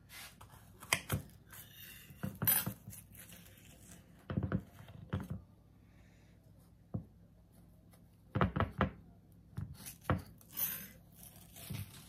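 A fork, then a knife, cutting through a baked pie in a glass pie dish: scattered short clicks and scrapes as the metal goes through the crust and meets the glass.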